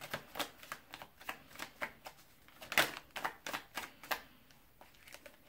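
Tarot cards being shuffled and handled: a run of quick, irregular card slaps and clicks, loudest a little under three seconds in, thinning out near the end.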